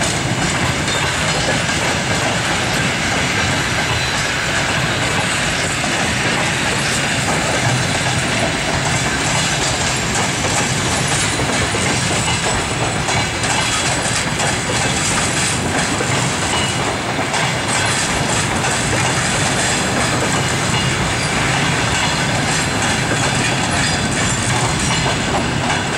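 Russian passenger coaches of a departing train rolling steadily past close by, their wheels clattering over the rail joints and points.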